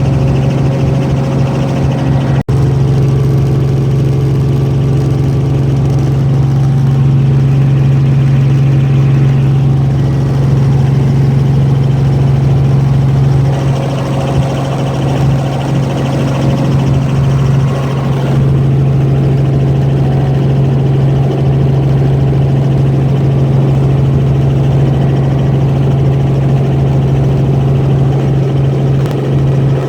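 Helicopter running in flight: a loud, steady engine-and-rotor drone with a strong low hum, broken by a very brief dropout about two and a half seconds in.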